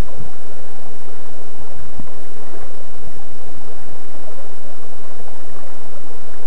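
Loud, steady rush of flowing river water and wind on the microphone, with a faint high steady whine underneath.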